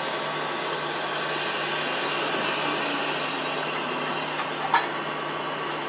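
EP2K electric locomotive running with a steady whir of its ventilation fans over a constant low hum, as it creeps at its slowest speed toward the carriage to couple. One short click a little before the end.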